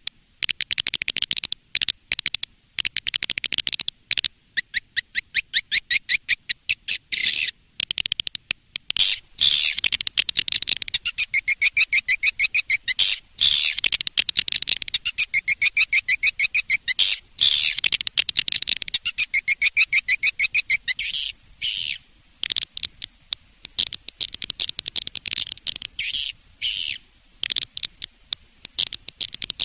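Recorded swiftlet calls of the kind played to lure swiftlets: high-pitched, rapid twittering trills repeated in runs of a few seconds, broken by short gaps and abrupt cuts.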